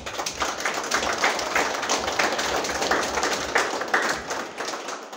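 A small group of people applauding, many uneven claps close together, dying down near the end.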